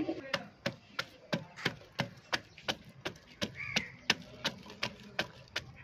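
Wooden pestle pounding garlic and ginger in a mortar (imam dasta), a steady run of dull knocks about three a second.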